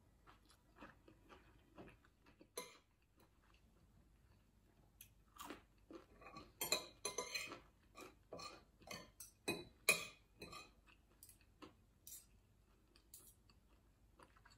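A person eating: chewing, with a spoon and fork clinking and scraping on a glass bowl and plates in scattered short clicks, busiest in the middle.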